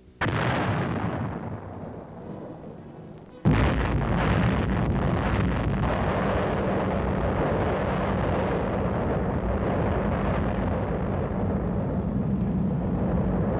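A heavy artillery gun fires once with a sharp blast that dies away over about three seconds. About three and a half seconds in, the sudden, louder blast of an atomic explosion breaks in and carries on as a long, steady rumble.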